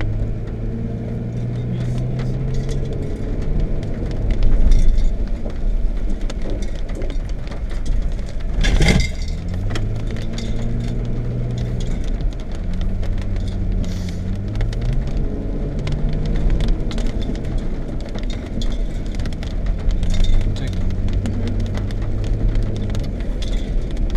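Car engine running as the car is driven along a rough dirt track, heard from inside the cabin; the engine note rises and drops several times. Scattered small clicks and rattles throughout, and one louder thump about nine seconds in.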